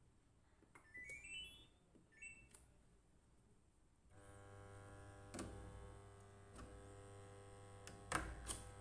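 Samsung top-load washing machine's control panel playing a short rising power-on chime of beeps, then two button beeps. About four seconds in, the water inlet valve opens with a steady electrical hum, with a few clicks over it: the machine now starts filling instead of stopping on the beep error.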